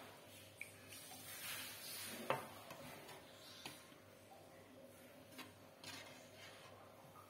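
A metal serving spoon clinking against a ceramic bowl as vegetable stew is spooned in: a few faint clinks, the sharpest about two seconds in.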